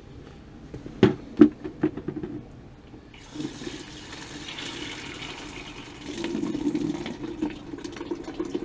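A few clunks of a plastic bucket with a wire handle being handled, then, about three seconds in, water starts running from the water heater into the bucket, getting louder about six seconds in: the tank being drained to take off its pressure.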